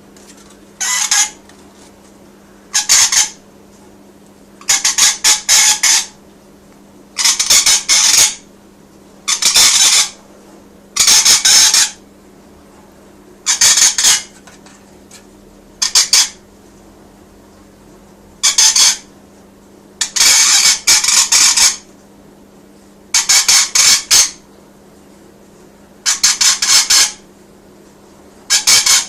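Rainbow lorikeet giving loud, harsh screeching squawks in repeated bursts, a dozen or so calls spaced about every two seconds, some of them doubled.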